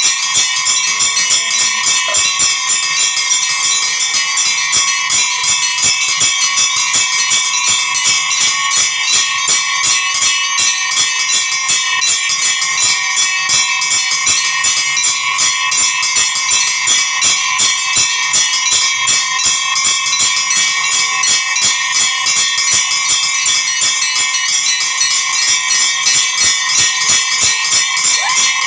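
Temple bells ringing continuously in rapid, even strokes, a steady metallic clanging that does not pause.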